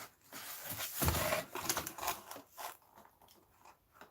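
Product packaging being handled and unwrapped: rustling and crinkling in short bursts, with a soft knock about a second in, then quieter toward the end.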